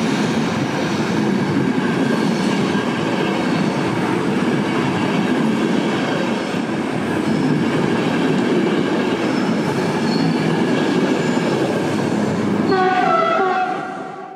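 A České dráhy Eurocity train pulling out of the station, its coaches rolling past with steady wheel rumble and clatter. Near the end there is a brief tone that falls slightly in pitch, and then the sound fades out.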